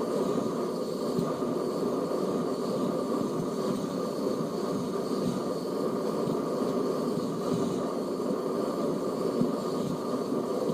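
A steady low rumble of background noise with no clear bird calls or pecking.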